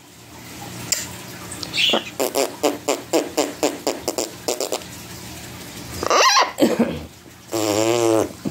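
Close-up mouth noises between a woman and her blue-and-gold macaw: a quick run of smacking kisses on the beak, a short rising-and-falling vocal sound, then a buzzing, wavering raspberry (a zerbert) near the end.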